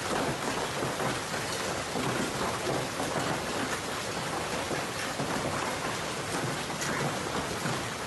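Heavy rain mixed with hail pelting down on the ground, a dense steady hiss with many small hits running through it.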